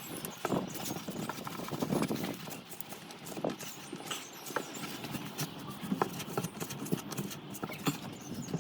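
Irregular clicks and knocks of an oil filter removal tool being fitted to and worked on an oil filter housing cap.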